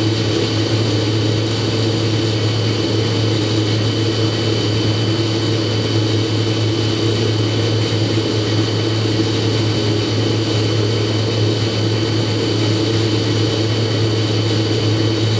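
Ransome 800-ton turning roll's AC variable-speed drive running at constant speed: a steady electric hum with a thin high whine over it.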